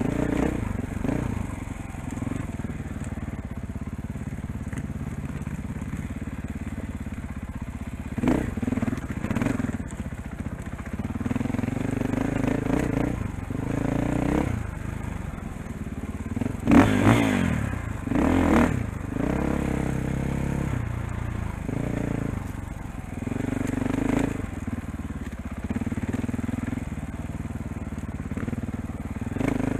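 KTM 500 dirt bike's single-cylinder four-stroke engine on rocky single track, the throttle opening and closing again and again, with the sharpest bursts of revs a little past halfway. Tyres crunch and scrape over rock underneath.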